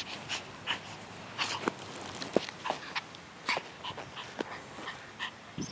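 Long-haired toy Chihuahua making short snuffles and small mouth sounds while it is petted, mixed with irregular rustling and clicks close by.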